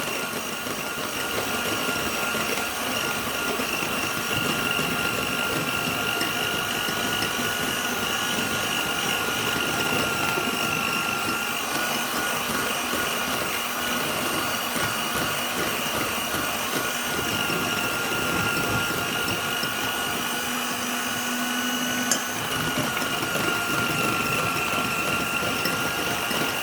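Electric kitchen mixer running steadily, whipping the lemon cream to a thick consistency; an even motor whine, with a brief shift in pitch and a small click about 22 seconds in.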